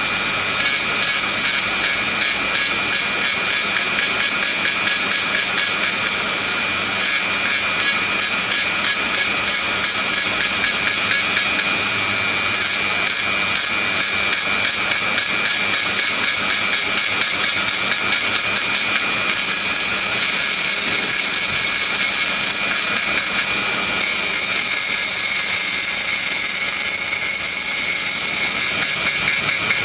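Small hand-held rotary tool running at high speed with a steady high-pitched whine, its fine bit grinding into a glass tumbler as it engraves; the pitch shifts a little near the end.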